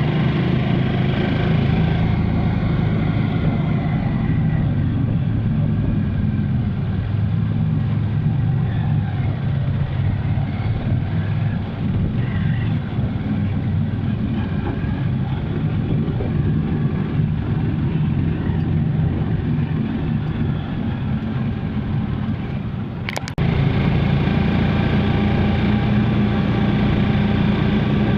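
Motor vehicle engine running steadily with road noise, picked up by an action camera's built-in microphone. About 23 seconds in the sound dips briefly and changes abruptly, as at a cut in the recording.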